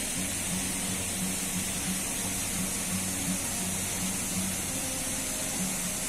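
Wide artificial waterfall pouring over a stone weir: a steady rush of falling water.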